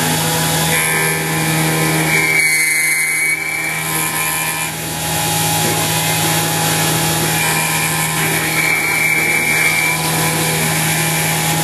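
Converted X2 CNC mini mill running, its spindle and end mill cutting 6061 aluminum: a loud, steady hum with a higher whine that comes in twice, about 2 and 8 seconds in.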